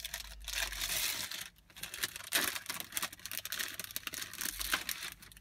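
Plastic wrapper of a Pokémon trading card pack being torn open and handled by hand: a run of rustling with a short break about a second and a half in.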